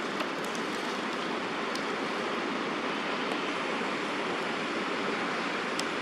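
Steady rain falling, an even hiss with a few faint sharp ticks of drops.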